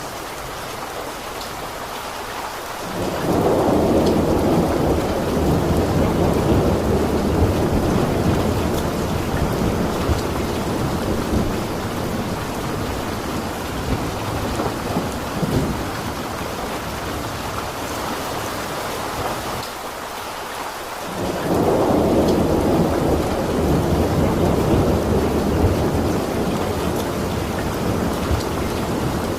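Steady rain with two long rolls of thunder, one beginning about three seconds in and another about twenty-one seconds in, each swelling suddenly and fading slowly.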